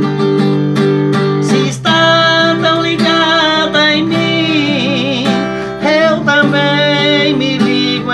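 Acoustic guitar strummed in a steady rhythm, with a man's singing voice coming in about two seconds in and holding long wavering notes over the chords.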